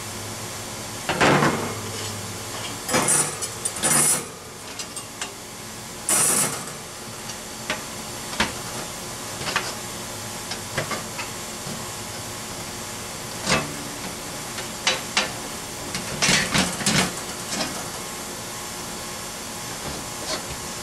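Thin steel panels and the wire cooking grate of a flat-pack portable fire pit grill being handled and slotted into new positions: scattered metal clanks, clicks and scrapes, some louder than others, over a steady background hiss.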